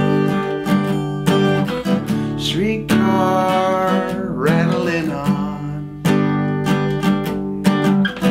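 Acoustic guitar strummed in a steady rhythm, chords ringing between the strokes, as a solo accompaniment between sung lines.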